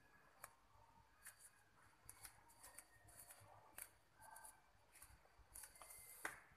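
Near silence broken by faint, irregular wet clicks and soft rustles from a cat licking its own fur, with a louder cluster of clicks near the end.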